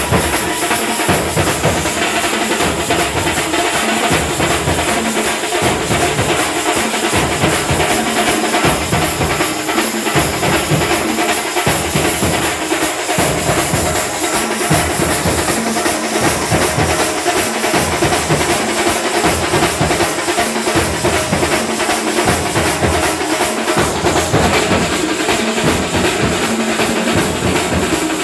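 A procession drum troupe playing many large drums together in a loud, steady, driving beat.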